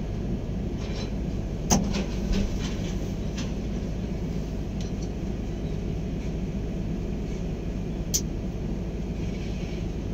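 Excavator's diesel engine running steadily, a low hum heard from inside the operator's cab, with two sharp clicks, one under two seconds in and another about eight seconds in.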